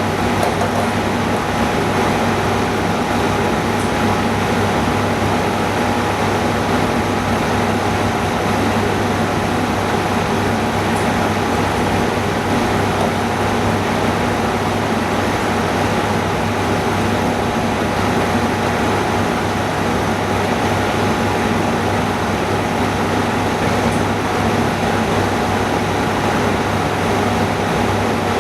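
Steady drone of running machinery: an even rush of air noise over a low, constant hum, with no breaks or changes.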